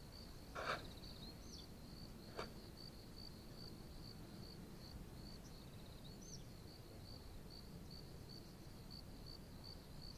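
A cricket chirping steadily and faintly, about three chirps a second. A few short rising bird whistles cut in, and there are two brief clicks in the first few seconds.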